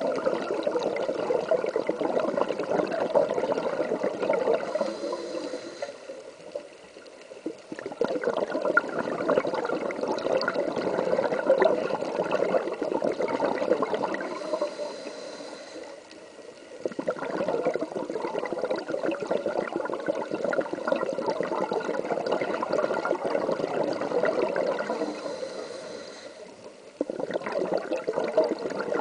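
A scuba diver breathing through a regulator, heard underwater. Long stretches of crackling, rushing exhaled bubbles are broken three times by a short quieter pause with a faint hiss as the diver inhales.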